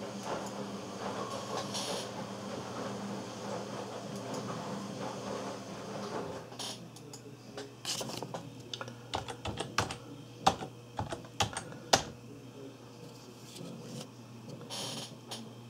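Computer keyboard being typed on: a quick run of key clicks in the second half, a few much louder than the rest, over a steady low hum.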